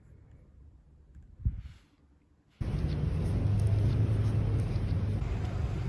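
Faint room sound with a single knock about a second and a half in, then a sudden cut to a loud, steady low rumble.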